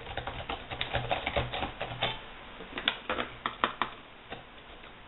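Typing on a laptop keyboard: a quick run of key clicks for about two seconds, then a few scattered keystrokes.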